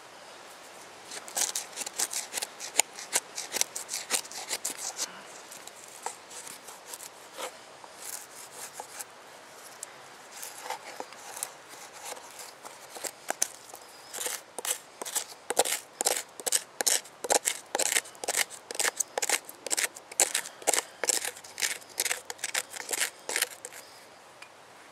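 A wooden stick scraping and grinding inside the charred, burnt-out hollow of a log bowl, clearing out the charcoal. It makes rapid, rough scratching strokes in two busy spells with a sparser stretch in between.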